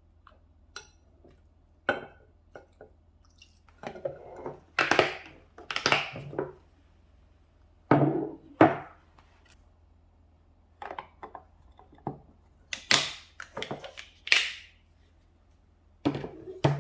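Irregular clatter of household items being handled: light clicks and knocks, a couple of dull thuds of things being set down, and several short swishing noises.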